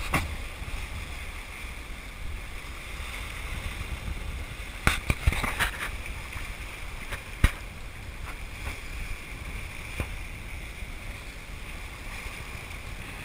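A sailing yacht under sail in a building wind: water rushing along the hull and wind rumbling on the microphone. A few sharp knocks come about five seconds in and again a little later.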